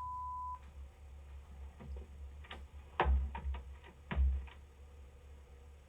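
A short steady beep, then scattered clicks and knocks picked up by a Ring doorbell camera's thin, low-fidelity microphone; the two loudest come about three and four seconds in, each with a low thump.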